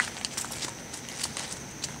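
Irregular light crackling clicks, several a second, over a steady high-pitched whine.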